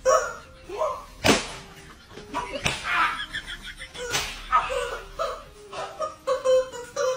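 Three sharp smacks of a hand-held stick striking a person, about a second and a half apart, with voices and background music.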